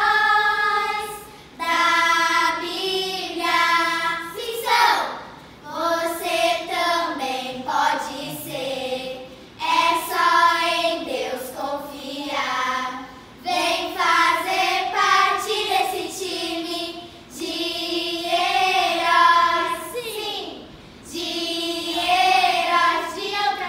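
A group of young girls singing loudly in unison without instruments, in short phrases broken by brief pauses.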